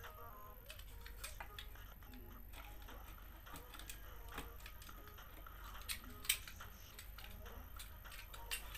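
Faint clicks and scraping of a plastic toothbrush-handle lure being worked by hand with small tools and sandpaper, with one sharp click about six seconds in, over a steady low hum.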